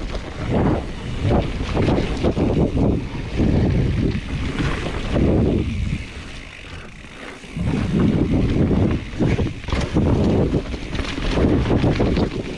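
Wind buffeting the microphone during a fast mountain-bike descent on a dirt trail, mixed with tyre noise and scattered knocks and rattles from the bike over rough ground. The rush eases for about two seconds around six seconds in, then returns.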